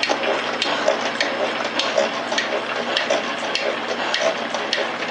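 Rhodes metal shaper, driven by an old Delta Rockwell motor, running on its lowest speed and taking a slow cut. A steady motor hum comes with a sharp, regular click a little under twice a second.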